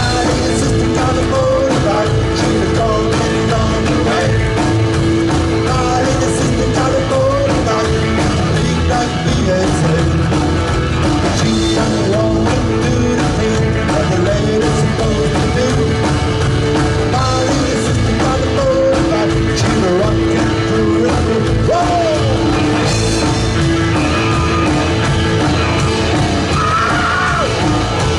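A live rock-and-roll band playing continuously, with a voice singing at times over the instruments.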